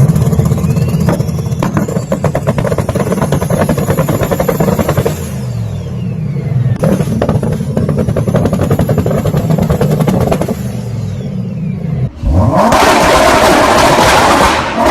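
Turbocharged engine revving with its anti-lag system firing: rapid exhaust pops and crackles in two long bursts, with the turbo's whistle falling away between them. Near the end the sound breaks off and gives way to a louder, rushing noise.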